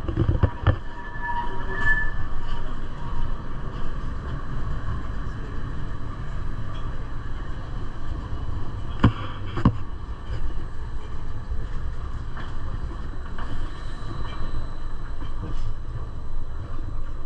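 Gornergrat rack railway train running: a steady low rumble with a few sharp knocks from the track.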